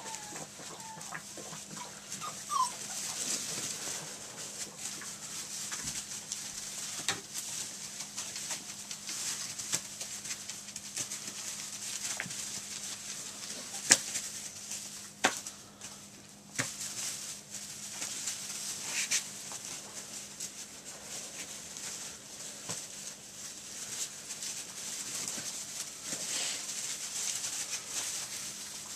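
Nearly six-week-old retriever puppies playing and scuffling in wood-shavings bedding, with a few short high yips in the first three seconds. A few sharp clicks or knocks come around the middle.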